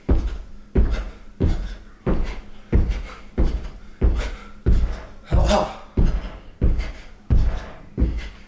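Repeated heavy thuds in a steady rhythm, about three every two seconds, each dying away quickly, with a louder rushing burst about five and a half seconds in.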